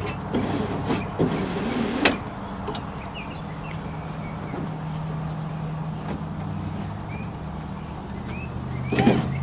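1985 Chevy K10's new power window motor running with a low hum that shifts in pitch as it labours to lift the door glass through tight new felt window channel; the motor is weak. An evenly pulsing high insect trill runs throughout, and there is a sharp knock about two seconds in and another near the end.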